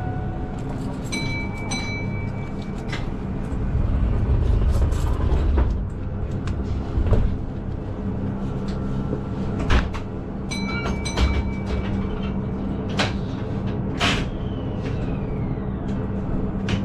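Keihan 8000-series electric train running: a steady hum with irregular clicks and knocks from the wheels and track. Pairs of short high beeps sound about a second in and again about ten seconds in.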